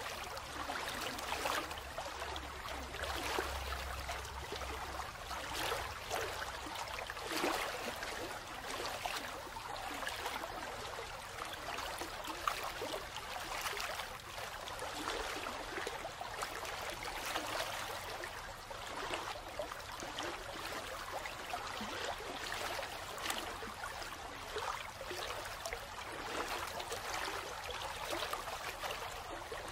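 Steady flowing water, like a running stream, with a fine trickling texture and no breaks.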